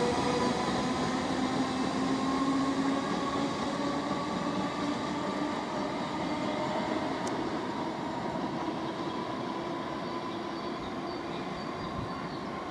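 A Class 313 electric multiple unit pulls away, its traction motors giving a whine in several tones that rise slowly in pitch over the rumble of the wheels, fading as the train draws off.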